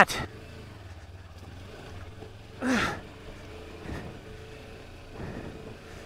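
Kawasaki Versys-X 300's parallel-twin engine running steadily at low revs while the motorcycle crawls along a wet, rocky trail. A short vocal exclamation cuts in about three seconds in.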